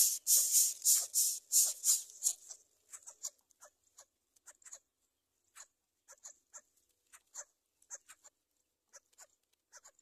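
Greater coucal nestlings begging with short hissing calls. The calls come in a quick even run of about three a second, then after a couple of seconds fade into fainter, scattered calls.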